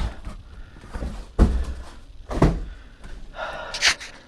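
Large cardboard kit box being moved and handled: two sharp knocks about a second apart, then a short scraping rustle near the end.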